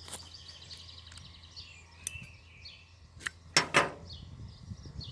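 Several sharp metallic clicks and clinks from a Zippo lighter being handled, the loudest two close together near the end. Faint bird and insect chirping runs underneath.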